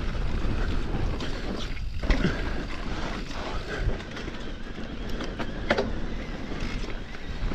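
Mountain bike rolling down a steep, washed-out dirt trail: steady tyre and ride noise with a low rumble, and scattered clicks and knocks from the bike over rough ground.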